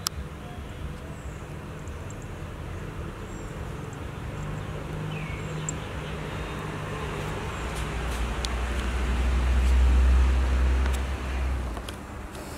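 Street traffic: a low engine rumble runs throughout, and a motor vehicle swells up loudly as it passes about ten seconds in, then fades.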